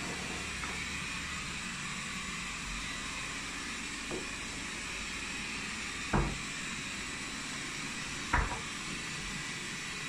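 Robot vacuum running with a steady whirring hiss. Two sharp knocks about two seconds apart in the second half, from things being handled on the kitchen counter.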